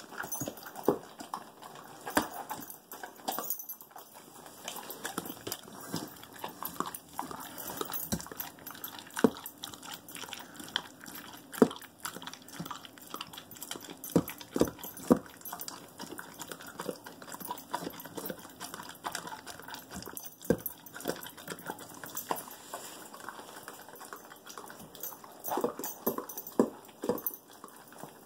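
A dog eating soft food from a bowl: chewing and lapping, with irregular clicks and knocks as the bowl is nosed along the tile floor.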